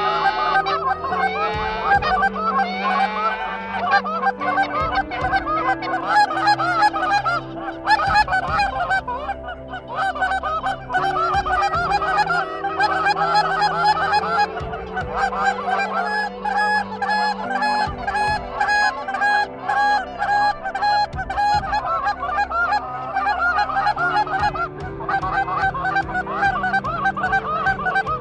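Canada geese honking continuously, many short calls overlapping.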